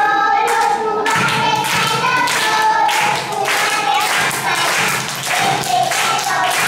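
Voices singing a children's ring-game song, with steady rhythmic hand clapping in time that starts about half a second in.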